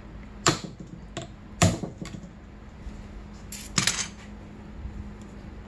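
Three sharp metal-on-metal hammer blows, about half a second, a second and a half and nearly four seconds in, with a couple of lighter knocks between. A steel hammer is striking a tool held against a bolt on a motorcycle engine's crankcase.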